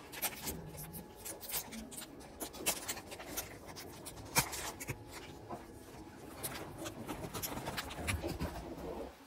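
Plastic snack wrapper crinkling and rustling as hands struggle to tear it open, with many sharp crackles.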